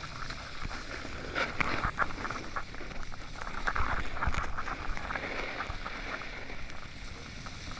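Snowboard sliding over snow, an uneven scraping hiss with crackly bursts that grows louder in the middle.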